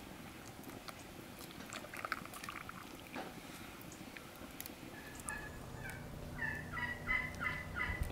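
Domestic turkey gobbling near the end: a rapid, rattling run of calls lasting about two seconds.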